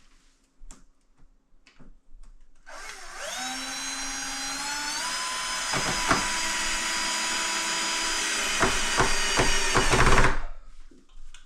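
Power drill driving a screw into a door frame: the motor whine rises as it spins up about three seconds in, runs steady for about seven seconds, then stops. A few sharp clicks near the end, as the bit slips in a screw head that won't take it.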